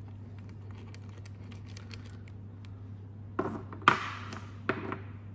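Metal engine parts being handled on an aluminium cylinder head: a few faint ticks, then past the middle a short run of clinks, the loudest a sharp metal knock followed by a brief scrape, as the camshaft and cam caps are moved. A steady low hum sits underneath.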